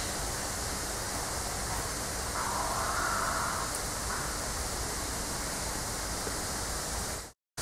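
Steady rushing background noise, with a brief faint mid-pitched sound about two and a half seconds in; the sound cuts out abruptly near the end.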